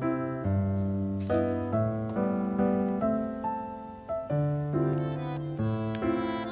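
Background piano music: a gentle melody of single notes over a bass line, the notes changing about every half second.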